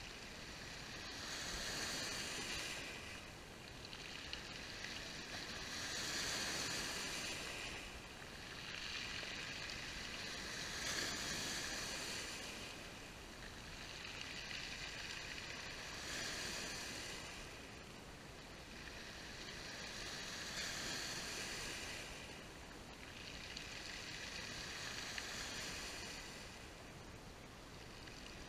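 Small sea waves breaking on a pebble beach and washing back over the stones, the surf swelling and fading about every four to five seconds.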